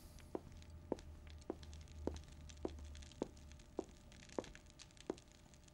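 A steady run of soft, sharp taps, a little under two a second, over a faint low hum.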